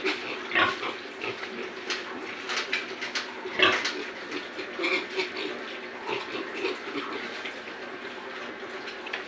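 Pigs grunting irregularly, with one louder sharp sound about three and a half seconds in.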